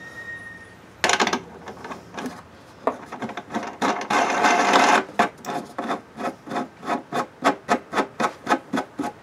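Felt-pad leveler being twisted by hand into the corner of a 3D-printed plastic tray, felt and plastic rubbing and scraping. A short scrape comes about a second in and a longer scraping rustle around four seconds, then quick regular strokes, about three a second, as it is turned.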